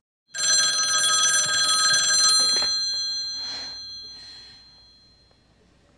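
Landline telephone bell ringing once, starting suddenly after a brief silence: loud with a fast rattle for about two seconds, then dying away.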